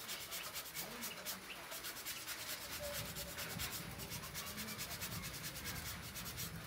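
Quick, even rubbing strokes, about five or six a second, as a boy works a strip of black bicycle rubber with his hands.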